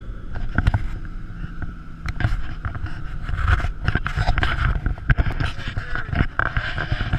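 Wind buffeting the camera's microphone in a low, gusty rumble, with frequent knocks and rubs as the GoPro is handled and set in place.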